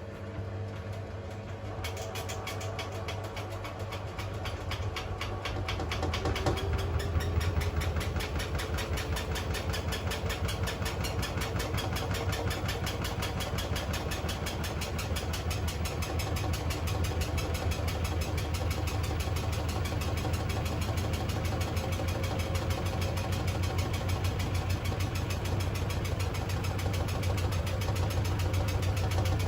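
Beko AquaTech washing machine running, with a steady hum and a motor whine that rises in pitch over several seconds, as when the drum speeds up, together with a fast, even rattle or knock. This is the bad noise the machine makes after only a week of use.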